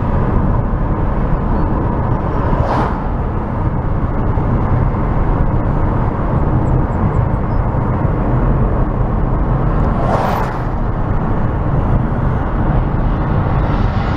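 Steady low rumble of a car driving, road and engine noise heard from inside the vehicle, with two brief swishes about three and ten seconds in.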